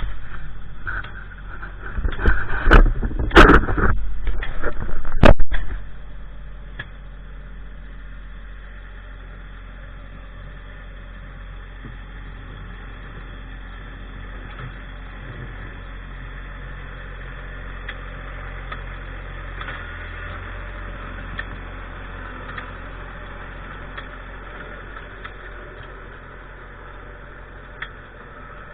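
Tractor engine: a loud rough stretch with sharp knocks for a few seconds near the start, then settling into a steady low idle.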